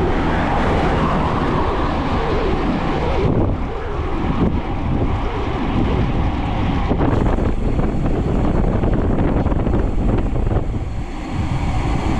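Wind rushing over the microphone of a camera on a moving bicycle, a steady, loud, low rush.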